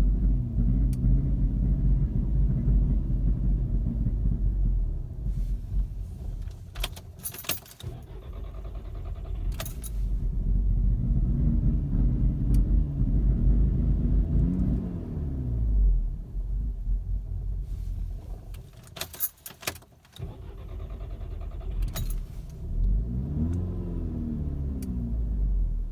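VW Mk6 GTI's 2.0-litre turbocharged four-cylinder idling roughly after a hot restart, its revs surging up and sagging back and nearly dying twice, a sign of a fault that the owner cannot yet find. Several sharp rattles or clicks sound along the way.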